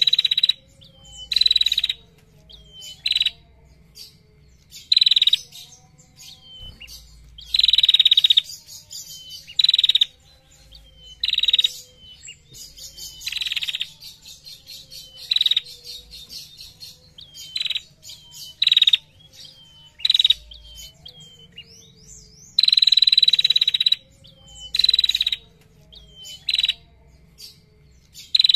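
Female prenjak singing: a run of long, loud, rattling trills, each lasting up to about a second and a half and repeated every second or two, with short chips in between.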